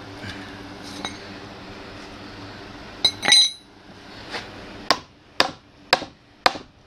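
Small sledgehammer striking a steel tool set into a dry Osage orange log, metal on metal, to split the log along a marked line. One ringing strike about three seconds in, then about five sharp blows roughly two a second.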